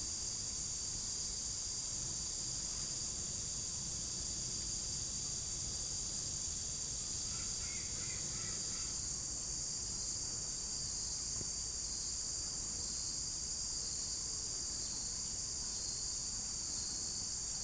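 Continuous high-pitched chorus of insects, a steady drone with no pauses.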